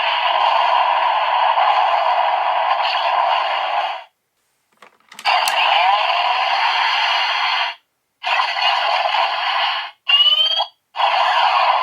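Electronic sound effect from a Kamen Rider transformation-belt toy's Boost buckle, played through its small speaker: a harsh, hissing buzz in stretches of a few seconds, cut off by short silences about four, eight and eleven seconds in, with a short rising tone near ten seconds.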